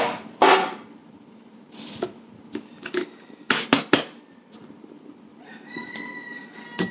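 Several sharp knocks and taps, then, starting about two-thirds of the way in, a sustained high-pitched call held on one pitch that drops as it ends.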